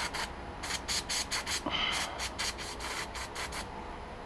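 Aerosol can, likely brake cleaner, spraying in a quick series of short hissing bursts, about three to four a second, onto small parts being cleaned.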